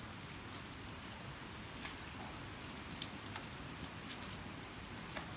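Rain falling steadily, an even hiss with a few separate louder drops ticking now and then.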